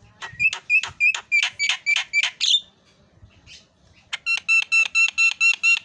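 Javan myna calling in two runs of rapid, sharp repeated notes, about four or five a second, with a pause of a second or so between the runs. The second run starting about four seconds in is more ringing and carries on past the end.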